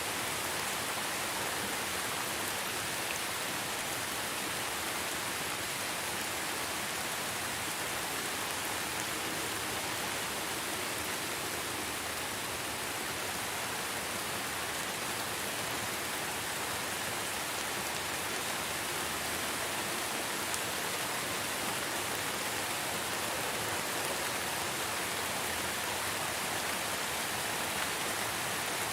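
Steady, even rain falling, a dense hiss without distinct drops or thunder.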